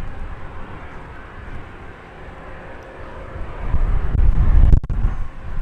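Twin BR710 turbofans of a Bombardier Global 6000 business jet arriving at the runway, the engine noise growing sharply louder about four seconds in.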